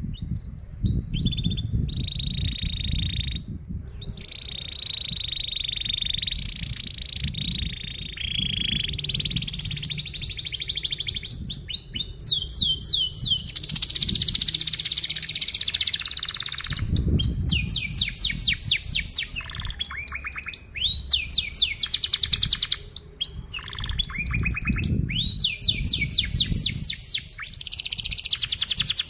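Domestic canary singing a long, continuous song: tight rolling trills held at one pitch for a few seconds each, then from about twelve seconds in, fast runs of repeated down-sweeping notes that grow louder toward the end.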